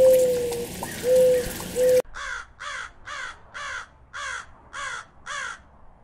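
A dove cooing: three low coos, the first the longest. About two seconds in they give way to a raven calling: seven harsh caws in an even series, about two a second.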